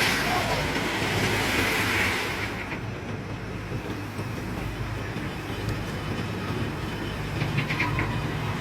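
Heavy machinery running with a steady low drone. A hiss sounds over it for the first two seconds or so, and a few sharp clicks come near the end.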